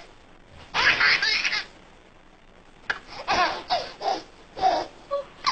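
A baby laughing: a fit of laughter about a second in, then a run of short, separate laughs from about three seconds in.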